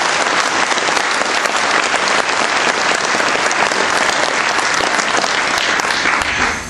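Audience applauding: steady, dense clapping that dies away near the end.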